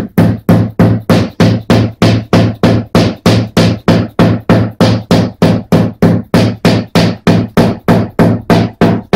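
Light hammer taps on a car's sheet-steel wing at the wheel arch, about four a second in a steady, even rhythm: paintless dent repair, tapping the creased panel back into shape.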